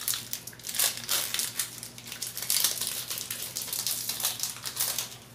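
Foil wrapper of a Pokémon booster pack crinkling and crackling as it is opened and the cards are pulled out. The crackling is dense and irregular throughout.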